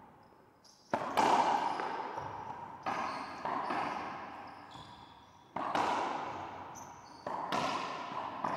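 Racquetball rally: the ball is cracked by racquets and smacks off the court walls, with about seven sharp hits at irregular intervals, each one echoing in the enclosed court.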